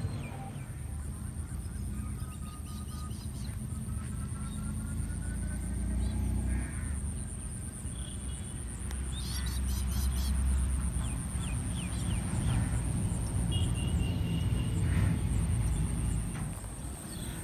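Outdoor pond-side ambience: scattered bird calls over a steady high-pitched insect drone, with a low rumble on the microphone underneath.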